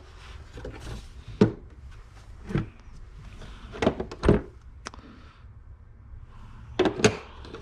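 Packaging and parts being handled while unpacking a box: a series of separate knocks and thuds as items are lifted out and set down, two close together about four seconds in and a short cluster near the end.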